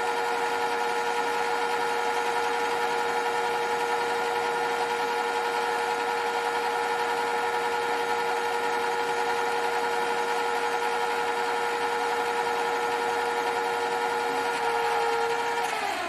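Mini lathe spindle running at a steady speed with a steady high tone over a harsh mechanical noise, a terrible noise from the spindle; near the end it winds down, the pitch falling as it stops.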